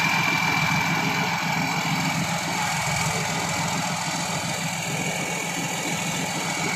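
Large engine idling steadily, with a thin high whine held at one pitch above it.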